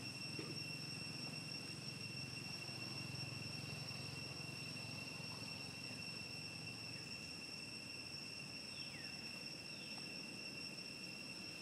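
Steady, high-pitched insect drone, one unbroken tone with overtones, over faint low outdoor rumble.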